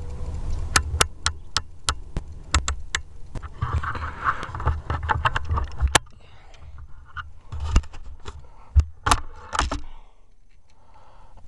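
Handling noise from the air rifle and its scope camera: irregular clicks and taps over low rubbing and rumbling, busier in the first half and sparser after about six seconds.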